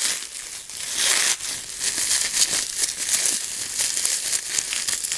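Plastic bubble wrap and film being pulled apart by hand, crinkling with many small crackles.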